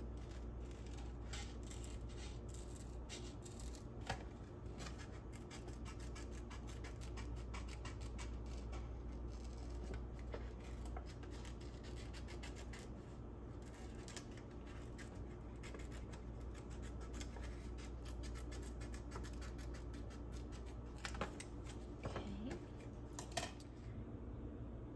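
Scissors cutting a kraft paper envelope in a long run of short snips, with the paper rustling, over a low steady hum. A few louder taps come near the end.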